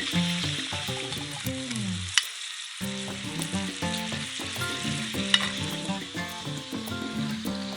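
Coarse-ground sausages sizzling in a hot frying pan, with two sharp pops about two seconds and five seconds in.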